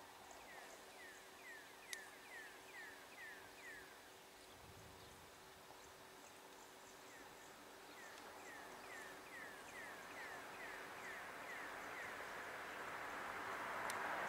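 A bird sings two runs of quick downslurred whistles, about three a second, over the faint rumble of two GP38-2 diesel locomotives approaching. The rumble grows steadily louder toward the end.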